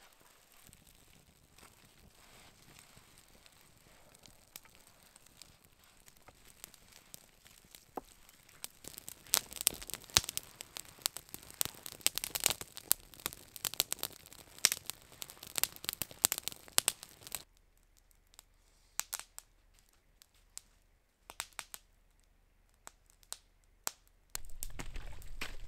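Small campfire of twigs and kindling crackling as it catches, with dense sharp pops through the middle that then thin out to scattered ones. Near the end a louder steady rustling noise comes in.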